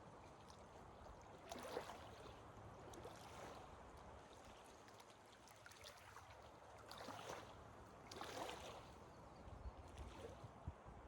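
Faint outdoor trail ambience: a quiet steady hiss with a few soft swishes, and a low rumble near the end.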